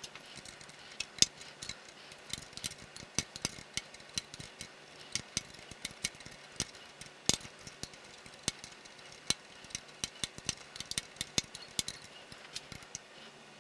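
Irregular light metallic clicks and taps of a combination wrench on the brake hydraulic line fitting of a BMW R90/6's front brake as the two lines are threaded together and tightened. A few sharper clicks stand out among them.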